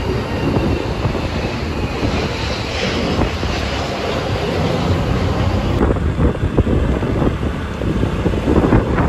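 Wind rushing over the microphone of a moving motorcycle, a steady low rumble mixed with engine and road noise.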